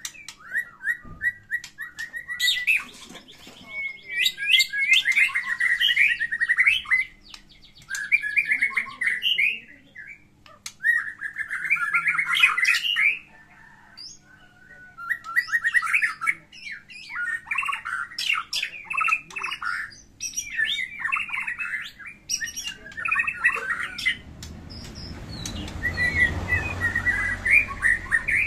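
White-rumped shama (murai batu) singing its loud fighting song: bursts of rich, rapidly varied phrases, each a second or two long, with short pauses between them. Near the end a low rumble runs under the song.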